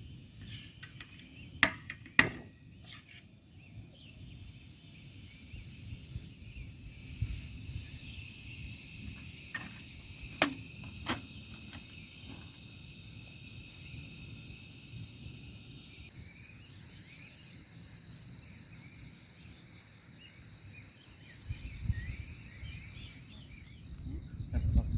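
Insects chirring in a steady, high, layered drone, with a few sharp clicks or knocks in the first dozen seconds. About two-thirds of the way through the drone changes abruptly to a pulsing high insect chirp, about three pulses a second, over a low rumble.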